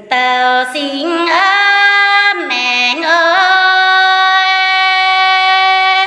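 A woman singing a Red Dao song unaccompanied, in long drawn-out notes that waver and slide between pitches, holding a single note through the second half.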